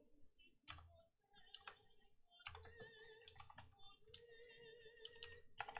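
Faint keystrokes on a computer keyboard: irregular clicks of typing, a few clustered together.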